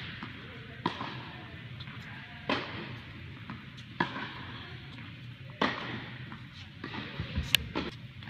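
Tennis balls being hit with racquets and bouncing on an indoor hard court: sharp pops about every second and a half, with a cluster of quicker pops near the end, each ringing briefly in the large hall.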